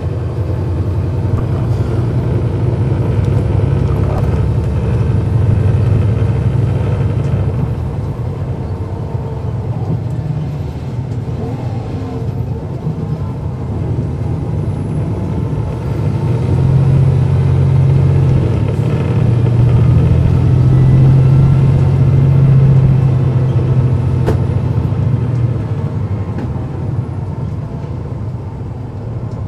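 Cummins ISL9 diesel engine of a 2009 NABI 40-foot transit bus running under way, heard from aboard as a steady low drone. The drone swells louder for several seconds past the middle, as the engine pulls harder, then eases off near the end.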